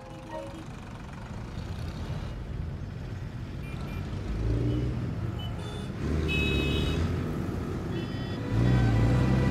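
Street traffic: engines of passing road vehicles rumbling, growing louder in steps, with a few short high beeps.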